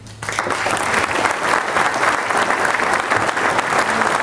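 Audience applauding. It breaks out suddenly just after the start and keeps up steadily.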